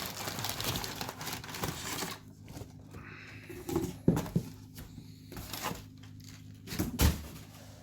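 Sneaker box and packaging being handled: rustling for about two seconds, then scattered knocks and taps on the cardboard.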